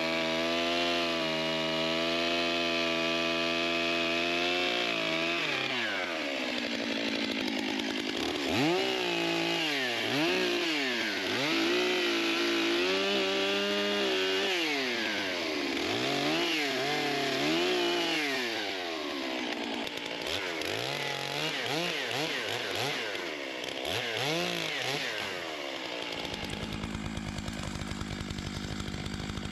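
Two-stroke chainsaw held at high revs for several seconds, then revving up and down again and again as it works through the log, dropping to a lower steady run near the end.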